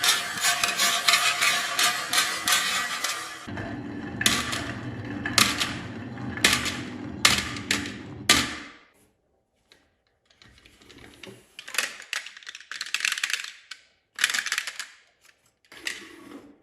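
Marbles clattering down a wooden marble run: rapid clicking at first, then a rolling rumble with sharp clacks about once a second. The rumble stops about nine seconds in, and short scattered rattles follow.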